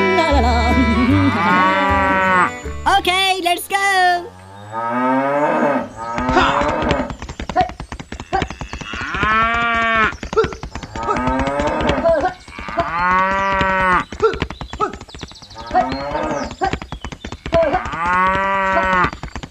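Cows mooing several times, each moo a long arched call about a second long, dubbed over toy oxen pulling a plough. A few seconds of music fade out at the start, and a dense scratchy crackle runs under the moos.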